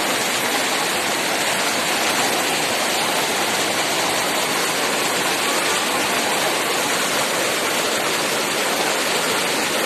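Floodwater rushing in a steady, loud roar of water.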